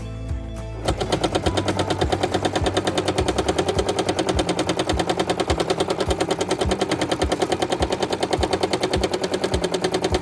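Domestic sewing machine stitching steadily at a fast, even pace during free-motion quilting, each needle stroke and hop of the hopping foot making a sharp tap. The stitching starts about a second in.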